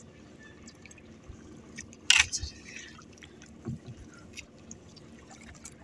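Water splashing at the side of a small outrigger boat as hands work in the sea, with one sharp splash about two seconds in among quieter small splashes and knocks.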